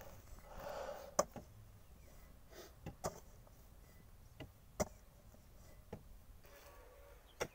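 Spade blade chopping into dry, clumpy soil: sharp knocks at irregular intervals, with softer rushing of loose earth twice in between.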